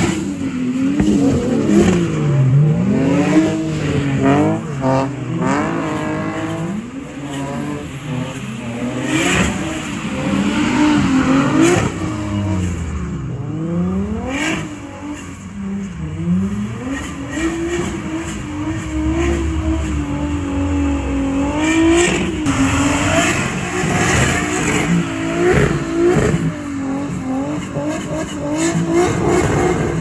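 Toyota Chaser's big-turbo 2JZ straight-six revving hard under drift. Its pitch swings up and down over and over as the throttle is blipped and held, with sharp cracks here and there.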